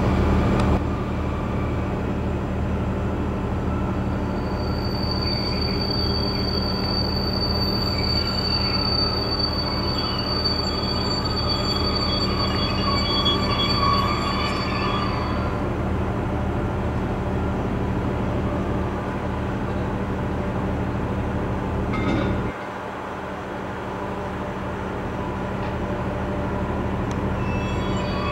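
Renfe class 269 electric locomotive hauling a container freight train into the station, over a steady low hum. Its wheels squeal with a high, steady tone for about ten seconds, starting a few seconds in. About three-quarters of the way through, the low hum cuts off.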